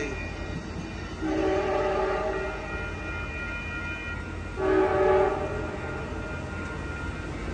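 Multi-tone horn of an Amtrak Capitol Corridor F59PHI diesel locomotive sounding a long blast and then a short one, the pattern of a grade-crossing signal, over the low rumble of the passing train.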